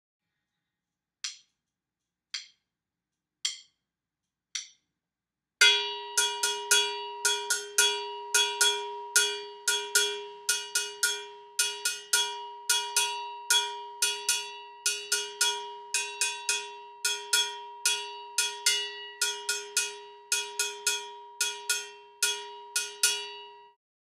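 Four evenly spaced clicks count in. Then a cowbell is struck over and over in a fast samba pattern, its two-note ring sounding steadily under the strokes, and it stops abruptly near the end.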